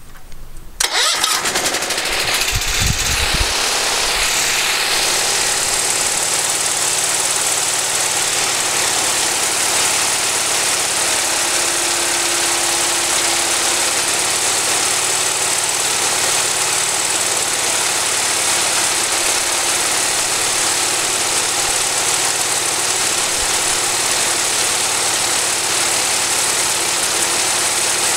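Cub Cadet 1250 garden tractor engine cranked on the starter about a second in, catching after a couple of seconds, then running steadily.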